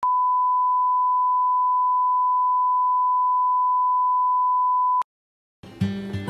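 Steady 1 kHz test tone, the line-up tone that goes with colour bars, held for about five seconds and then cut off sharply. After a short silence, acoustic guitar music begins near the end.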